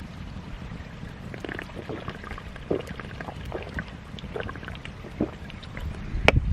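Liquid being poured in a run of short gurgling glugs, then a single sharp knock near the end, over a low rumble of wind on the microphone.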